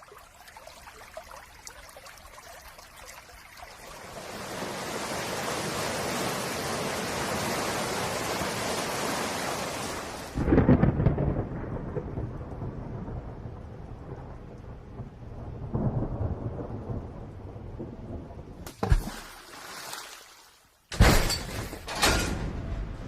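Rain swelling into a heavy downpour, then a loud thunderclap about ten seconds in followed by rolling rumbles. Near the end the storm cuts off and a few sharp, separate impacts begin.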